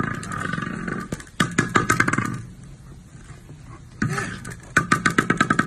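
Young tiger growling: two rasping growls, the second starting about four seconds in, each breaking into a fast pulsing rattle.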